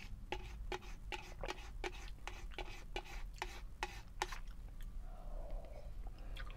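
Plastic spork scraping the inside of an instant-noodle cup for the last grains of rice and noodles, in regular strokes about three a second for about four seconds, then a short slurp as the cup is tipped to the mouth to drink the remaining broth.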